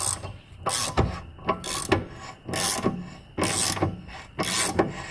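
Ratchet wrench worked in strokes about once a second, turning the threaded rod of a screw-type bushing press tool. It is pulling the rubber-and-aluminium rear lower control arm inner bushing of a BMW E90 into the subframe under heavy load.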